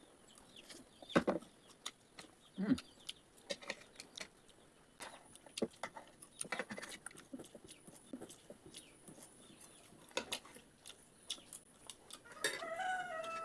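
Scattered light clicks and taps, and near the end a chicken's drawn-out call lasting about a second.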